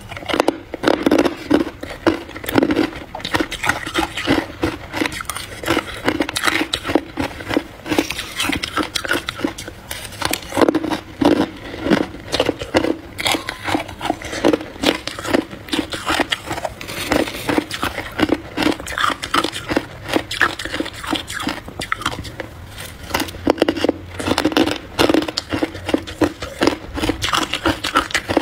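A person biting and chewing frozen frost ice mixed with buckwheat, close to the microphone: a dense, fast run of crisp crunches.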